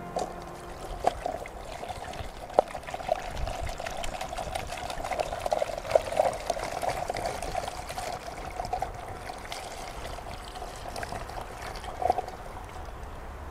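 Water pouring steadily from two plastic bottles into a plastic bottle funnel, a continuous trickling splash, with a few sharp clicks along the way.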